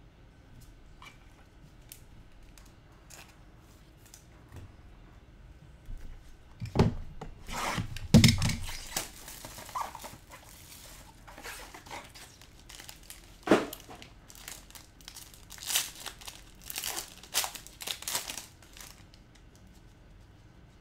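Trading-card packaging being torn open and crinkled by hand, in short irregular bursts, with a heavier knock about eight seconds in.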